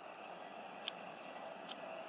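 Faint steady outdoor hiss with two short, sharp clicks, the first about a second in and the second near the end.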